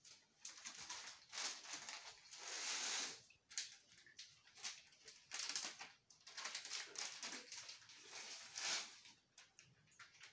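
Instant noodle and seasoning packets being handled and torn open: irregular plastic crinkling and rustling in short bursts, with a few small clicks.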